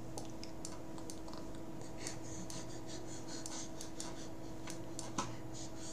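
Stylus scratching and tapping on a tablet during handwriting: short, irregular strokes over a steady electrical hum, with a sharper click about five seconds in.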